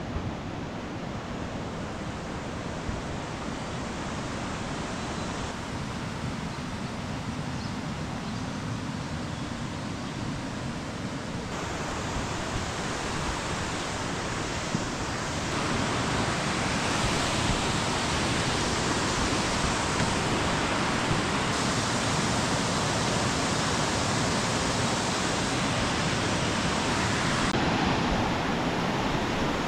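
Rushing water of a mountain stream or waterfall: a steady, dense hiss that changes level and tone abruptly several times and grows louder about halfway through.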